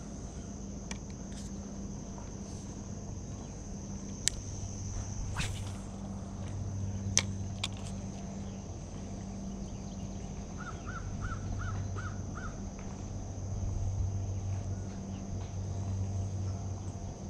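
Spinning reel cranked steadily to retrieve a small inline spinner, a low whir that comes and goes, with a few sharp clicks. A steady high insect drone runs underneath. About two-thirds of the way through, a bird gives a quick series of six short calls.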